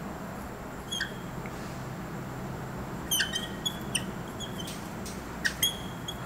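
Felt-tip marker squeaking on a whiteboard as letters are written: short, high squeaks come in small clusters, thickest about three seconds in and again just past five seconds. A steady low hum runs underneath.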